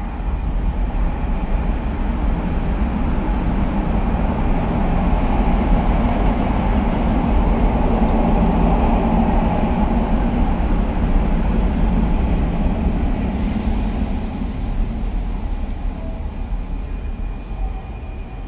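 A train passing through the station on the next track, heard from inside a stopped commuter train: its rumble builds to a peak about halfway, with a few sharp clicks, then fades away.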